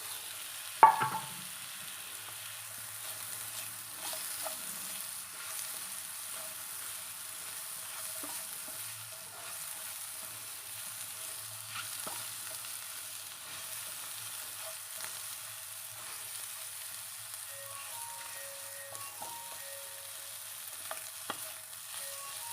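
Mushrooms frying in butter in a pan, sizzling steadily as they are stirred, with a sharp clink of the spatula against the pan about a second in and a few lighter taps later.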